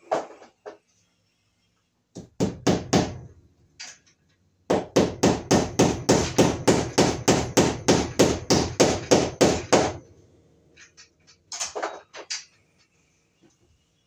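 Hammer driving cable staples into a wooden ceiling joist to fasten electrical wire. There is one strike at the start, a short run of blows about two seconds in, then a long steady run of quick taps at about four a second for some five seconds, and a few last blows near the end.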